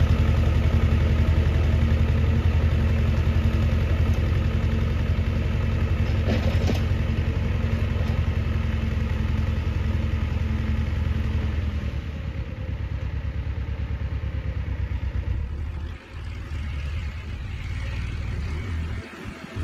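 Władimirec T-25 tractor's two-cylinder air-cooled diesel engine running steadily. About twelve seconds in the engine note drops and it runs more quietly to the end.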